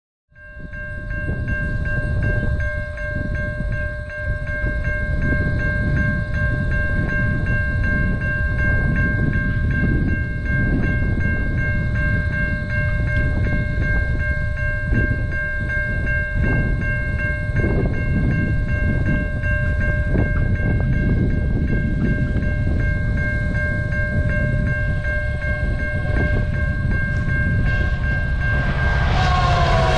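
Grade crossing warning bell ringing as one steady high tone over a low rumble while a VIA Rail passenger train approaches. Just before the end the train's horn sounds, falling in pitch as it comes close.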